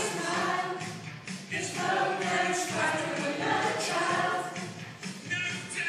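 A group of women singing together in chorus, over a steady lower-pitched musical accompaniment.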